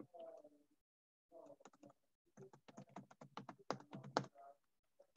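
Typing on a computer keyboard: a quick, quiet run of key clicks from about two seconds in.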